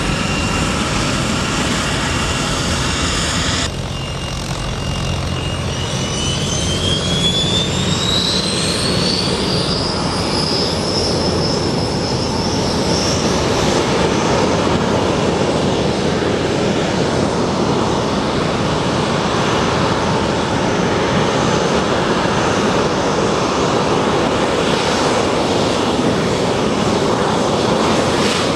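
Delfin L-29's single Motorlet M-701 turbojet running: a steady high whine, an abrupt change about four seconds in, then a whine rising in pitch over several seconds as the engine spools up, with a rushing roar building under it.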